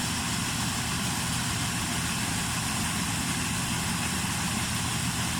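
Combine harvester running steadily at working speed: an even engine drone under a constant broad hiss of machinery.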